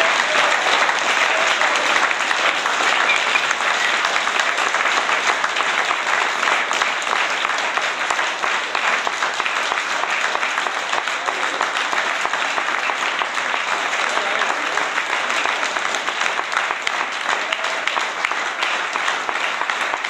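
Audience applauding: many hands clapping in a dense, steady patter that eases off slightly toward the end.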